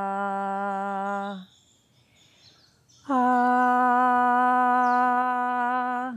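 A woman's voice holding a long, steady "ahh" on one pitch, which stops about a second and a half in. After a short pause with faint bird chirps, she sings a second "ahh", higher and louder, held for about three seconds and cut off at the end.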